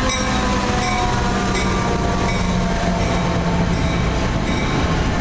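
Metra commuter train running by on the rails: a steady, loud rumble with several drawn-out tones that slowly drop in pitch.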